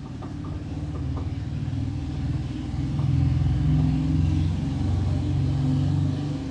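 A steady low motor rumble that grows louder over the first three seconds, with a few faint ticks near the start.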